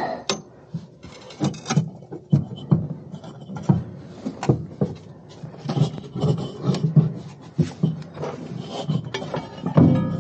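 Irregular knocks, clicks and scrapes of a metal air-bag mounting bracket being worked loose by gloved hands and pulled out of a motorhome's rear suspension.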